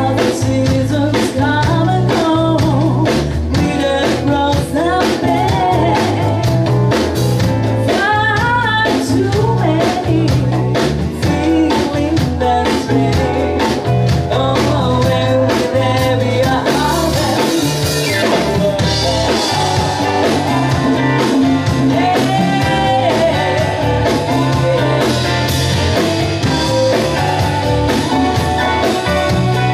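Live band playing a song with keyboard, electric guitar and drum kit under a steady beat, while several women sing lead and backing vocals. A cymbal wash swells about halfway through.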